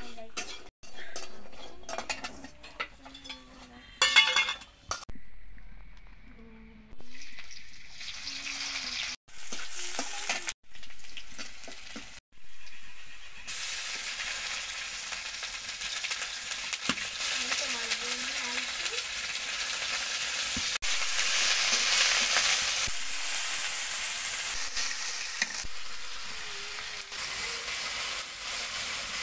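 Food frying in hot oil in a metal wok, sizzling, with a metal spatula stirring and scraping against the pan. The first half is broken by several short cuts. From about halfway on, a steady loud sizzle runs without a break.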